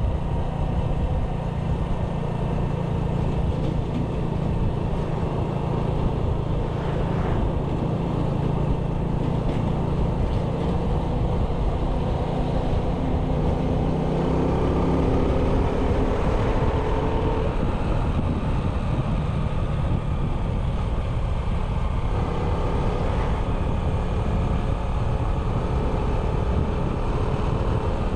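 A small 97cc motorbike engine running while being ridden, over a steady rush of road and wind noise. The engine's pitch shifts and rises around the middle.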